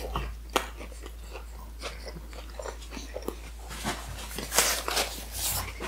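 Close-miked eating: a person chewing with wet mouth clicks and smacks, then biting and chewing into a soft pita wrap, louder and crunchier from about four seconds in.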